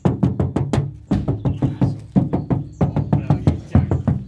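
Knuckles rapping quickly and repeatedly on the sheet-steel door panel of a Toyota Kijang LGX, each knock ringing briefly and hollowly. It is the usual used-car check that the panel is still bare metal, not built up with body filler.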